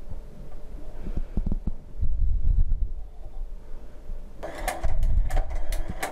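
Circular linking (kettel) machine stitching a knitted band: low irregular thumps, then about four seconds in a quick run of sharp mechanical clicks from the stitching head.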